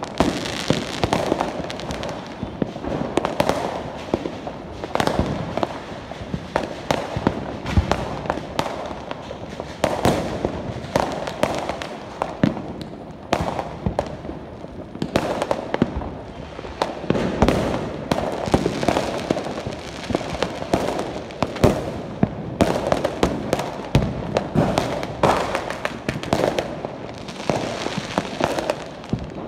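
Fireworks and firecrackers going off all around in a dense, continuous barrage: many overlapping bangs and pops, some much sharper and louder than others, with no break.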